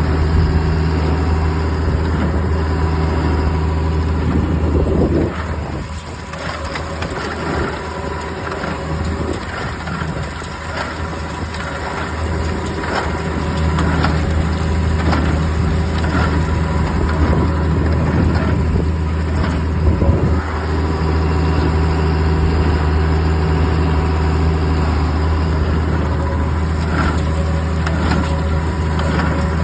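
International Harvester 46 twine-tie hay baler running behind a tractor while baling straw: a steady low engine and driveline hum with repeated knocks and crunches from the baler's working parts as it packs the straw.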